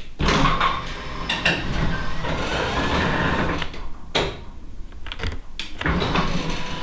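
Liftmaster garage door opener running and the door rattling as it moves, with several sharp clicks and knocks and a steady motor hum coming in near the end.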